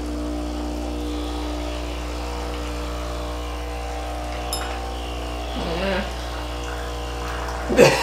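Breville Barista Express espresso machine's vibratory pump buzzing steadily as it pushes hot water through the group head into the portafilter to preheat it.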